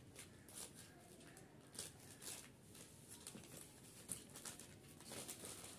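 Faint crinkling and rustling of a plastic courier mailer being torn open and handled, in short scattered bursts.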